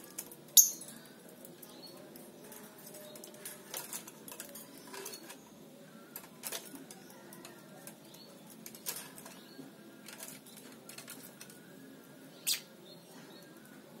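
Lovebirds moving about in their wire cages, giving a scattering of short, sharp, high-pitched sounds. A loud one comes about half a second in and another near the end, with fainter ones in between.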